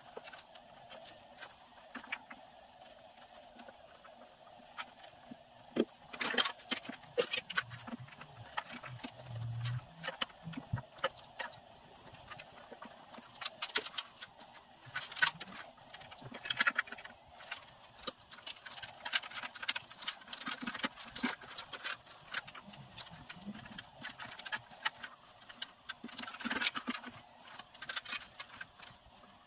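Hand work in a car's engine bay: irregular clicks, knocks and rustles as the wiring loom and parts are handled against the bare steel body, in several busy spells over a faint steady hum.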